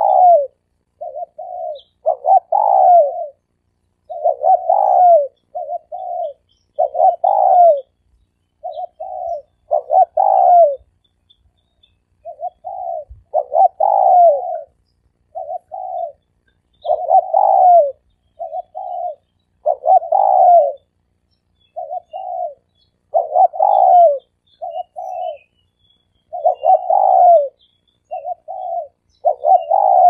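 Spotted dove cooing: a three-part phrase of two short coos and a longer, louder coo that falls in pitch, repeated evenly about every three seconds.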